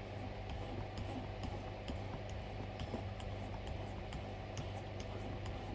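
Knife blade stroked back and forth on a sharpening stone in quick, short scraping strokes, about two to three a second, raising a burr along the edge. A steady low hum runs underneath.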